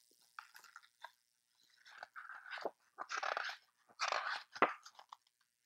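Pages of a hardcover picture book being turned and handled: a few light clicks, then three bursts of paper rustling about a second apart.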